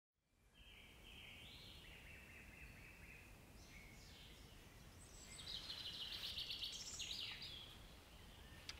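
Faint forest ambience fading in from silence, with small birds calling. Partway through, a louder bird call of rapidly repeated notes lasts about two seconds.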